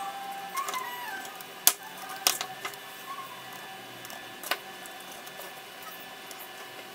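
Plastic spring clamps clicking as they are handled and fitted onto a laser-cut wooden lampshade frame: three sharp clicks, the loudest a little under two seconds in, one shortly after and one about halfway through, over a faint steady background.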